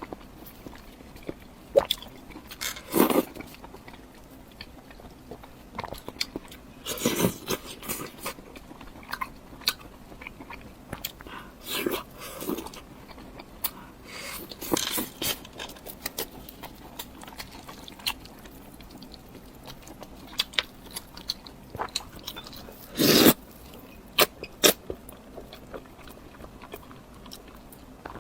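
Close-miked eating: biting and chewing a piece of simmered oden daikon radish, with irregular wet mouth clicks and a few louder bites, the loudest about three-quarters of the way through.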